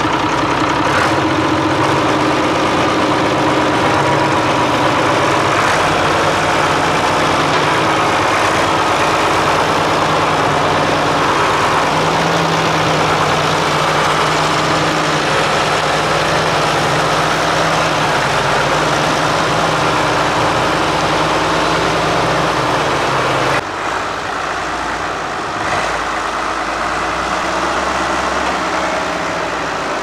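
County 1124 Highland Bear four-wheel-drive tractor's diesel engine running steadily as the tractor works. About three-quarters of the way through it suddenly becomes quieter and the engine note changes, then it carries on.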